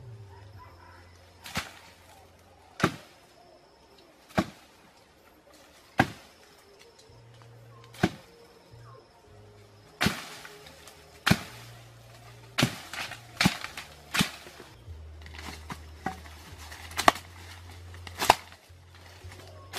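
A series of sharp blows, about one every one and a half to two seconds at first, then closer together and more irregular through the second half. Two of the loudest fall near the end.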